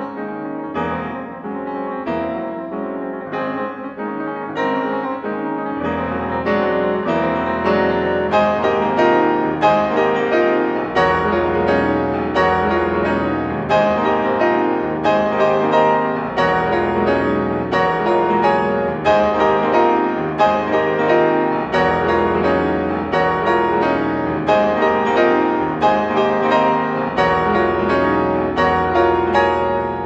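Steinway D concert grand piano played solo, a steady stream of notes in the middle register that grows louder about six seconds in as deep bass notes join, recorded live in a concert hall.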